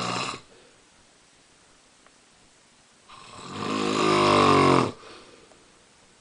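A sleeping man snoring loudly. One snore ends just after the start; about three seconds in, a longer, louder snore swells for nearly two seconds and then cuts off.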